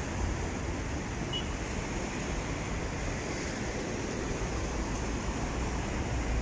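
Steady traffic noise of cars driving past on a busy multi-lane road, an even wash of tyre and engine sound. A minibus passes close near the end.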